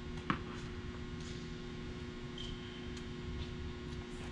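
A steady low hum, with one short sharp knock about a third of a second in and a few faint ticks.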